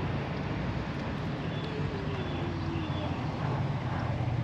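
Steady low rumble of a running vehicle, with a faint whine falling in pitch near the middle and a few brief high chirps.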